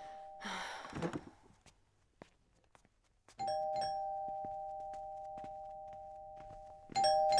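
Two-note ding-dong doorbell chime rings twice, about three and a half seconds apart, each higher-then-lower pair of tones ringing on and slowly fading. A short rustle about a second in and a few light taps come before and between the chimes.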